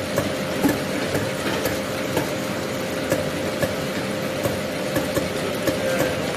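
Six-grade fresh fish weighing and sorting machine running: a steady conveyor motor hum with a constant tone, and sharp mechanical clicks repeating about twice a second.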